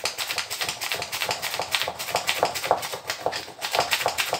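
Small painted outer barrel of an airsoft pistol rubbed quickly back and forth against a fabric gear pouch, a fast run of scratchy strokes about six a second. It is an abrasion test of wear-resistant gun paint against gear.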